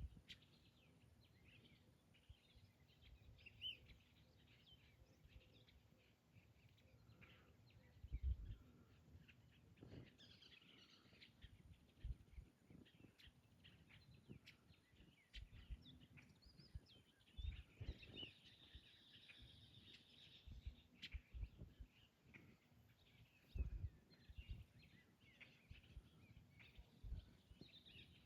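Faint birds chirping and calling on and off, with occasional soft low thumps.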